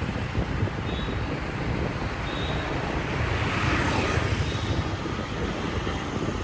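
Wind buffeting the microphone over steady vehicle and road noise, with a louder rush building and fading about three to four seconds in.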